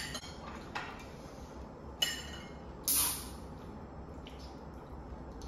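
Tableware and eating sounds: a few light clinks and taps, and a short hissing burst about three seconds in.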